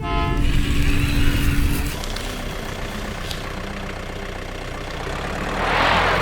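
Heavy construction vehicle's engine running under load, with a rising rush of noise near the end.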